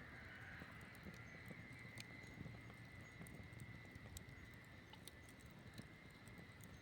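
Campfire burning with a low rumble and soft crackling, broken by many small, sharp pops scattered irregularly.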